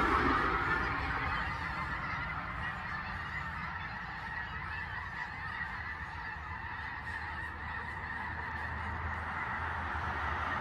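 A large flock of geese honking overhead, a dense chorus of overlapping calls. The calls fade over the first couple of seconds as the flock moves away, then swell again near the end.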